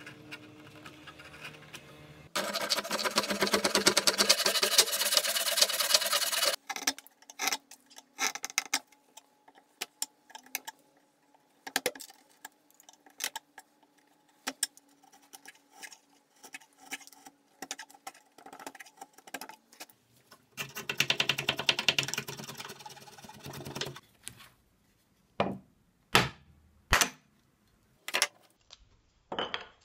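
Hand-tool woodwork on a workbench. Several seconds of loud, fast scraping come first, then a long stretch of light ticks and taps from chisel work, and then a second short scraping stretch. Near the end come several sharp knocks as tools are set down on the bench.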